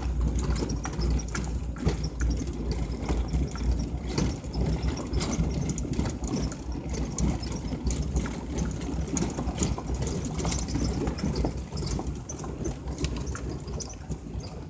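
Vehicle engine running at low speed in the cabin while the vehicle rolls over a rough dirt track, with scattered knocks and rattles from the bumps.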